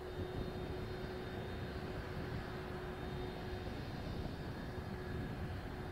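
Kawasaki C-2 transport's two CF6 turbofan engines running at low power on the ground: a steady rumble with a constant hum running through it.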